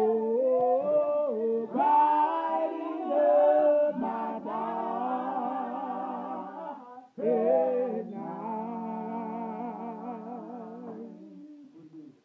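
A gospel singing group sings a cappella, with held notes sung with vibrato and a brief break between phrases about seven seconds in.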